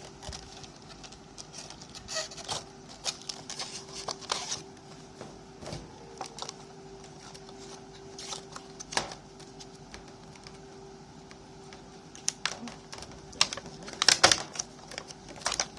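Toy packaging being opened by hand: scattered clicks, taps and rustles of cardboard and plastic, with a louder flurry of clatter about 14 seconds in, over a faint steady hum.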